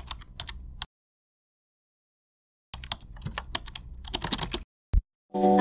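Irregular light clicks and taps in two runs, broken by about two seconds of dead silence, then one lone click. Music with singing starts right at the end.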